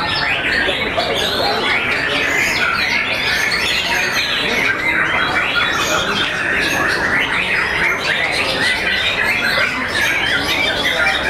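Many white-rumped shamas singing at once: a dense, steady mass of overlapping whistled phrases with no pause.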